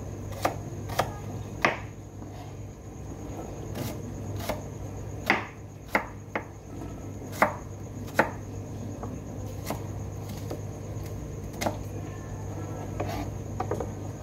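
Chef's knife chopping onion on a plastic cutting board: about a dozen sharp, irregularly spaced knocks of the blade against the board.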